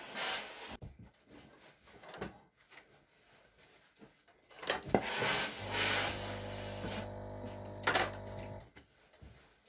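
Steam-generator iron and bedding: bursts of hissing and cloth being rubbed and handled, with the iron station's pump buzzing steadily for about three seconds past the middle, broken by a sharp click near the end.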